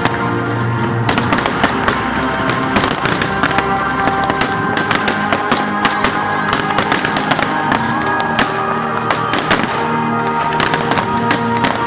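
Fireworks bursting in rapid succession, several bangs and crackles a second, over loud music with held tones.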